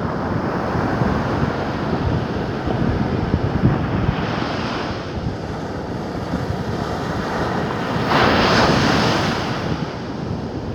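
Sea waves washing in, with wind buffeting the microphone; two surges of hiss, a small one about four seconds in and a louder one about eight seconds in.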